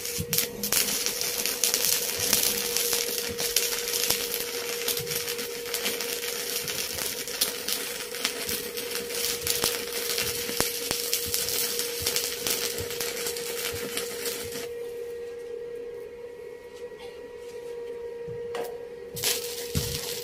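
Stick welding arc crackling and sizzling as a straight bead is run on thin 1.5 mm steel at about 90 amps from a Daiden inverter welder. The crackle is steady for about fourteen seconds, then drops off, and comes back in a few short sharp bursts near the end as the arc is struck again.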